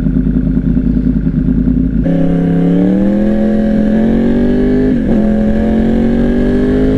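Yamaha R1 sportbike's inline-four engine idling, then pulling away about two seconds in with the revs rising steadily. There is a brief drop in pitch from a gear change about five seconds in, then it climbs again.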